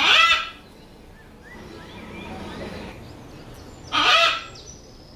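Two loud parrot squawks, about four seconds apart and each about half a second long, with faint bird chirps between them.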